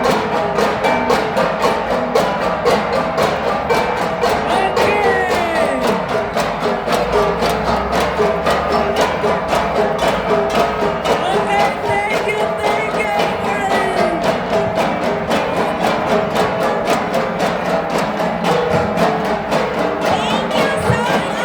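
Ensemble of Cordillera flat gongs (gangsa) struck in a fast, steady interlocking rhythm, about four strokes a second, ringing in sustained pitches.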